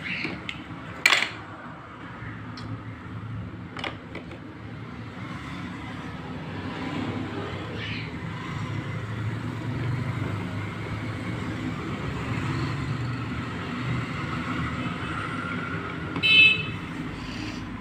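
Plastic toy kitchen pieces clicking as they are set down, with two sharp clicks in the first few seconds, over a steady low rumble. A short, loud, buzzing horn-like tone sounds near the end.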